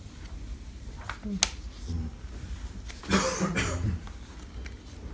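Sheets of paper being handled and shuffled, with a few sharp clicks and light rustles and a louder burst of noise about three seconds in.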